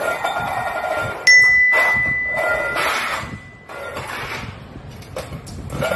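A beagle's paw knocks a stainless steel dog bowl, which rings with a clear ding about a second in that fades over the next couple of seconds. Around it the bowl scrapes and clatters on a tile floor.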